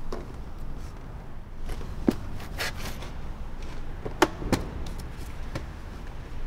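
A few sharp clicks and knocks of something being handled in a car's front seat, with a short rustle between them, over a steady low hum.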